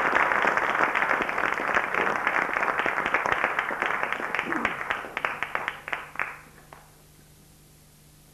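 Audience applauding, a dense patter of claps that dies away about six to seven seconds in, leaving a faint low hum.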